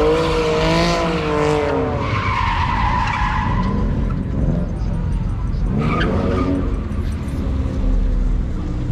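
A car's tyres squealing as it spins donuts, the squeal wavering in pitch and coming in several spells, over the low rumble of the revving engine.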